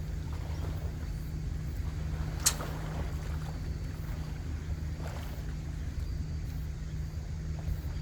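Steady low outdoor rumble of wind and sea, with one sharp click about two and a half seconds in.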